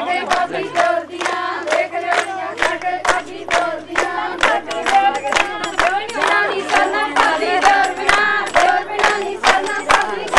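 A group of women singing a folk song together over a steady beat of rhythmic hand claps.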